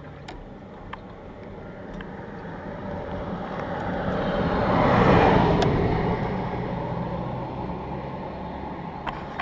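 Suzuki V-Strom 650's V-twin engine running under way, with a broad swell of road and engine noise that builds to a peak about five seconds in and then eases off. This is the engine the owner believes has an abnormal knock.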